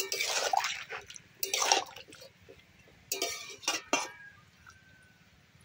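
Metal spatula stirring bottle-gourd greens and potato pieces in a metal kadai with a little added water: a few short, wet scraping strokes.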